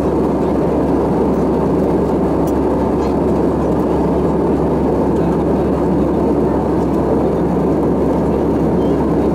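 Steady cabin noise of an Airbus A320-216 in cruise: the CFM56 engines' hum and the rush of air past the fuselage, heard inside the cabin. It is loud and unchanging, with a low drone beneath the rushing.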